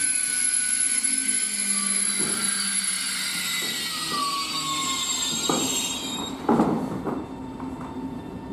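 Electric ETR 610 tilting train rolling slowly through a station, its wheels squealing in several high-pitched tones, some sliding in pitch. A few clunks come from the running gear about five to seven seconds in, the loudest near six and a half seconds, and then the squeal fades away.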